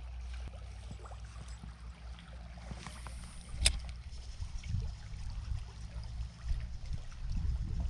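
Shallow trout stream flowing, with a low rumble underneath and a spinning reel being wound in. One sharp click comes about three and a half seconds in.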